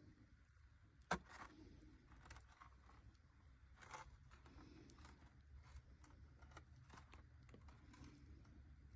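Faint, scattered light clicks and taps over a low steady hum, with one sharper click about a second in and another near four seconds.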